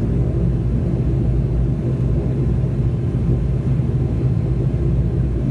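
ATR 72-212's twin turboprop engines and propellers heard inside the passenger cabin: a steady low drone with a constant hum, holding the same pitch and level throughout.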